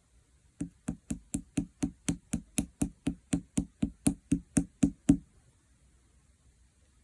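Rapid, even tapping or knocking on a hard surface, about four taps a second for roughly four and a half seconds. There are about twenty taps, and the last is the loudest.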